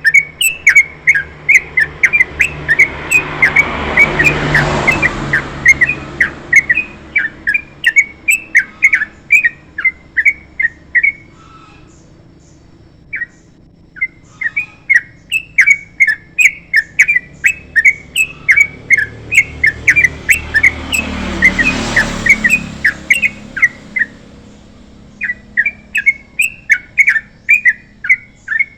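Yellow-vented bulbul (trucukan) singing a long, fast run of short, loud whistled notes, several a second, pausing briefly twice. Twice a rushing noise swells up and fades away beneath the song.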